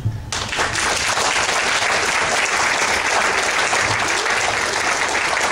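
An audience applauding, the clapping starting a moment in and going on steadily.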